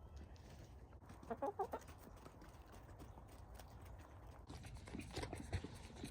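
Chickens clucking, a quick run of short calls about a second in, then scattered small clicks and knocks.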